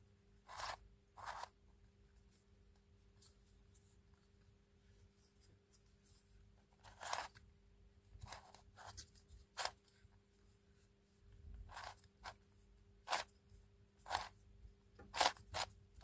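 Plastic twisty puzzle being turned by hand: faint, scattered clicks and clacks as its layers are twisted and snap into place, sparse at first and coming more often in the second half.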